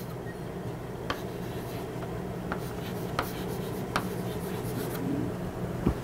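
Chalk writing on a blackboard: scratchy strokes with about five sharp taps of the chalk against the board, over a steady low hum.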